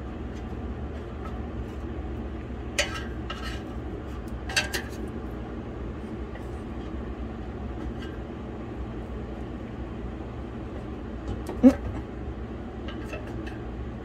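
Wooden chopsticks clicking against ribs and the nonstick air fryer basket as the ribs are moved about: a few light clicks about three to five seconds in and a sharper knock near the end. A steady low hum runs underneath.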